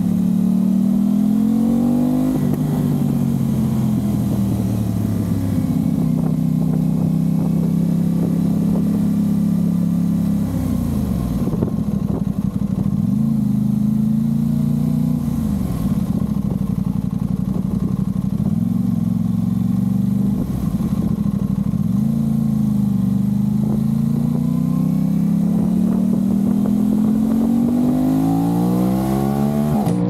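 Aprilia RS660's parallel-twin engine through a Mivv Delta Race aftermarket exhaust, heard from the rider's seat on the move. The revs ease off early, hold fairly low with a few dips and rises, then climb steadily near the end as the bike accelerates.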